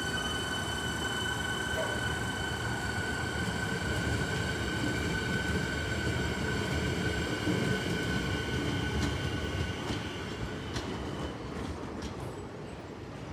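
Electric suburban train running on the track: a low rumble of wheels and rails with a steady high-pitched motor whine over it. The whine fades out about eleven seconds in and the sound eases off, with a few sharp clicks near the end.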